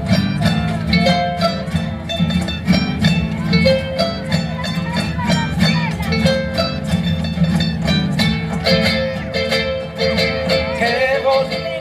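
Instrumental band music with a steady beat, without singing.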